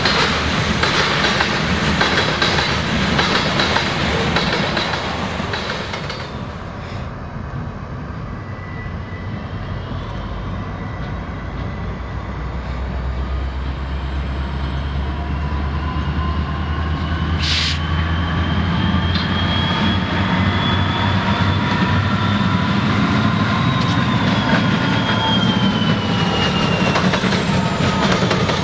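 Freight car wheels and trucks rolling past close by with dense rumble and clatter, then, after a sudden change, diesel-electric freight locomotives approaching slowly, engines running with a building low drone. A high whine rises over them, then drops as they come past, with one short hiss partway through.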